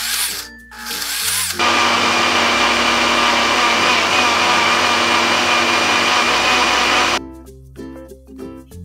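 Vidia PBL-001 personal blender's motor puréeing arugula pesto. Two short bursts come first, then a steady, loud whirring for about five and a half seconds that cuts off suddenly. Light background music plays underneath.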